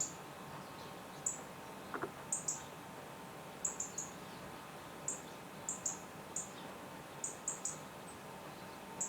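Small garden birds calling outside: very short, high, thin chirps, often in quick pairs or threes, coming every second or so.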